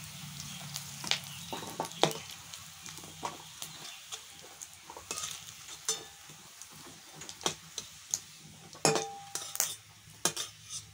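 Fish-roe fritters sizzling in hot oil in a kadai, with a metal spatula repeatedly clicking and scraping against the pan as the fried fritters are lifted out.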